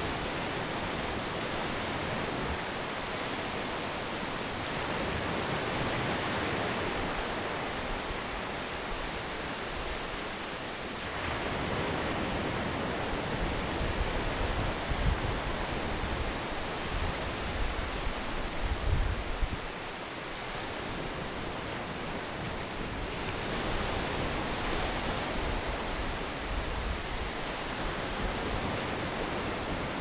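Sea surf breaking and washing over a shallow sandy beach: an even rushing wash that slowly swells and eases. A few low bumps of wind on the microphone come in the middle.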